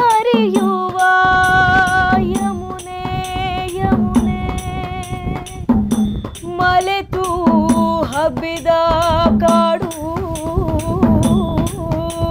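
A woman singing long held notes that waver in pitch, accompanied by a dholak drum played in a steady rhythm.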